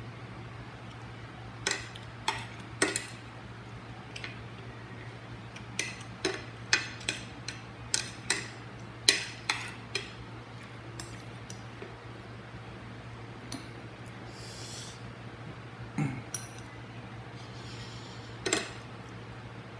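Spoon and fork clinking and scraping against a plate while eating: a string of sharp clicks, densest in the first half, then a few more near the end, over a steady low hum.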